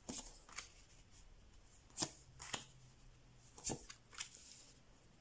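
Tarot cards being shuffled in the hands and dealt onto a table: a soft series of short, sharp card snaps and taps, about six in five seconds, the sharpest about two seconds in.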